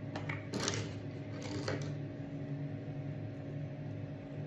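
A few light plastic clicks and handling sounds from a toothpaste tube being opened and squeezed onto a toothbrush, in the first couple of seconds, over a steady low hum.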